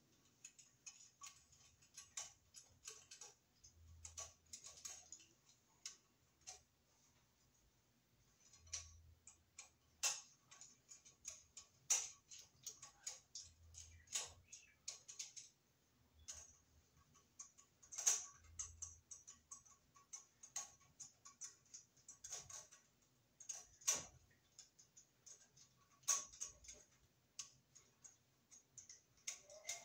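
Screwdriver turning screws on a metal electrical junction box: faint, irregular small clicks and ticks of metal on metal as the screws are run in, with a few soft low thumps from handling the box.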